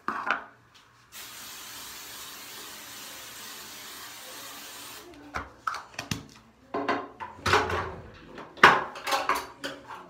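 An aerosol spray can sprayed over the hair in one continuous hiss of about four seconds. It is followed by a run of short knocks and rustles from things being handled.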